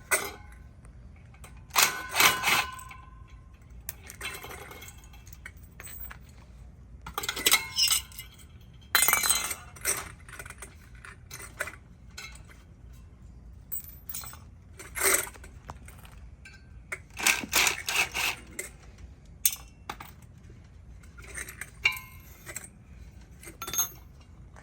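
Metal parts from a ceiling fan being dismantled clinking and clattering as they are handled and dropped onto a scrap pile, in irregular bursts a few seconds apart.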